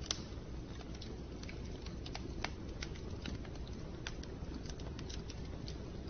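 Wood fire crackling in a fireplace: irregular sharp pops and snaps, the loudest just after the start, over a steady low rumble.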